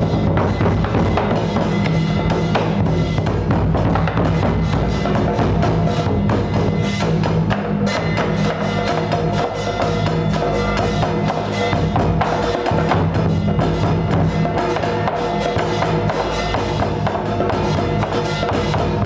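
Percussion-led music: drums and a wood block playing a dense, fast beat without a pause.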